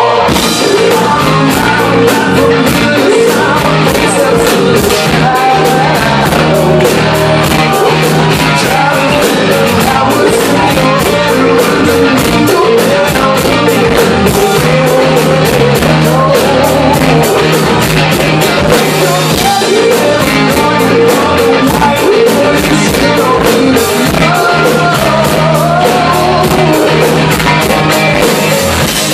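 Live rock band playing a song: electric guitars, bass guitar and a drum kit with steady cymbal strokes, under a male lead vocal.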